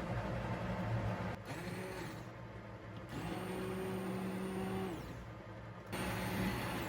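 Electric blender run in short pulses, its motor whirring up to speed and dropping off again three times over a steady background hum, as when kabocha pumpkin soup is puréed.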